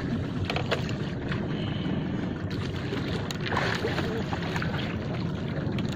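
Small wooden fishing boat's engine running steadily as a low rumble, with a few faint clicks.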